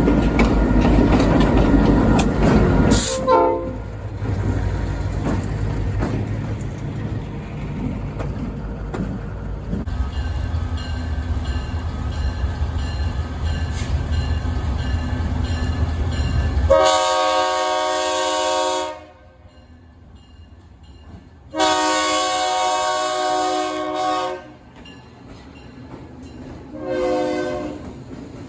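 Locomotive air horn sounding over the low rumble of a moving train: two long blasts, the second about three seconds long, then a short toot near the end, with quieter gaps between.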